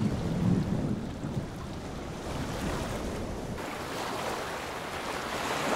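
Wind blowing across the microphone over water lapping, a steady noise that turns a little hissier about three and a half seconds in.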